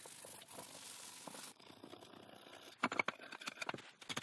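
Wire brush scrubbing a bench-shear blade, a faint steady scratchy rasp that stops about a second and a half in. After it come scattered light scrapes and clicks as the blade is wiped with a rag.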